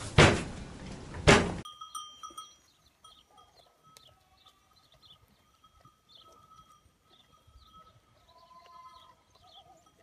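Two loud thumps about a second apart in a calf shed. Then faint outdoor background: short high chirps repeating over a thin steady tone, and a faint wavering call near the end.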